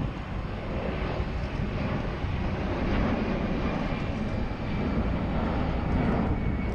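Jet engines of an airliner climbing out after take-off: a steady low rumble that swells a little a few seconds in.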